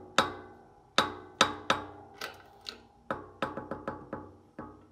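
Hammer blows on a steel tube used as a driver, seating a steel plate onto a go-kart clutch housing hub in a tight press fit. About a dozen sharp metallic strikes with a short ring after each, some spaced out and some in quick runs.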